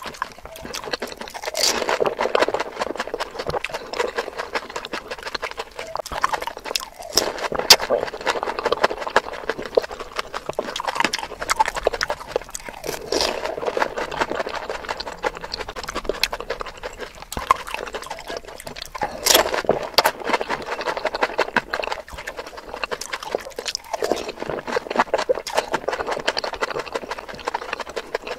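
Close-miked eating of pani puri: crisp puri shells crunching and cracking, with wet chewing and slurps of the spiced water, in a rapid run of crackly clicks, sped up to double speed.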